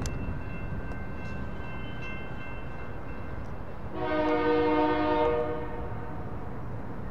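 Union Pacific freight locomotive's air horn sounds one blast of about a second and a half, about four seconds in, over a steady low rumble.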